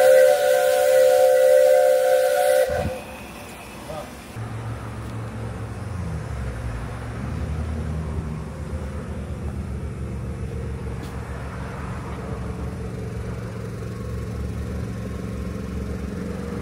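Steam locomotive's whistle blowing a loud, steady blast over hissing steam, cutting off abruptly about two and a half seconds in. A low, steady rumble follows.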